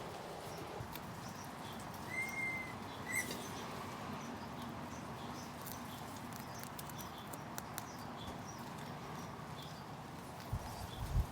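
Footsteps of a person walking, soft and regular over a steady low background hum, with a short high tone about two seconds in and a few light knocks near the end.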